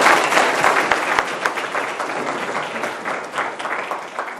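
Audience applauding, loudest at the start and gradually dying down.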